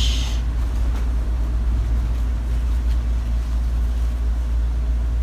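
A steady, loud low hum with no words over it. A brief rustle comes right at the start.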